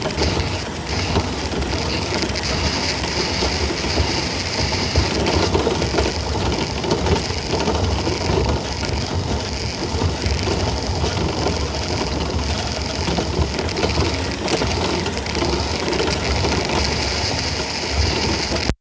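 2009 VW Tiguan's front suspension heard from a microphone in the engine bay while driving: continuous irregular knocking and rattling over road noise. The mechanic puts it down to a badly blown shock absorber, along with other worn suspension parts.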